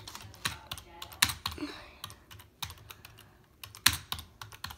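Typing on a computer keyboard: irregular keystrokes with short pauses, one louder stroke about four seconds in.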